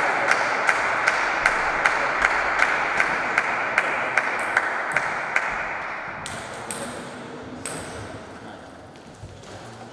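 Table-tennis ball bouncing, a steady series of light ticks about two and a half a second that stops about halfway through.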